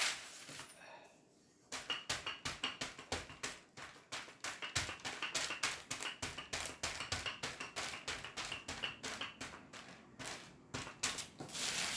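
Wooden rolling pin rolled back and forth over scone dough between sheets of baking paper: after a short quiet spell it sets up a quick, uneven run of clicks and taps, several a second, with light paper rustle.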